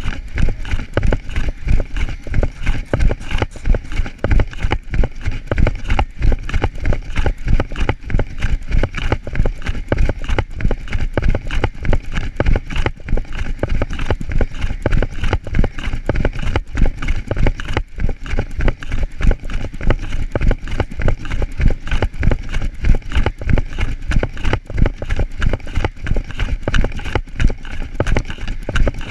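Running footfalls on grass, a fast, even thud with every stride, with the jostling of the phone carried by the runner.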